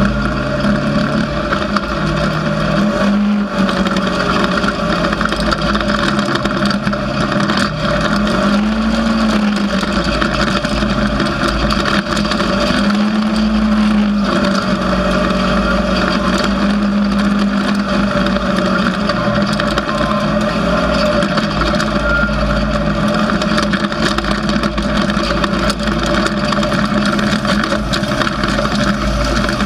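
Off-road vehicle engine running hard on a dirt trail, its pitch rising and falling with the throttle every few seconds, over a steady rush of wind and tyre noise.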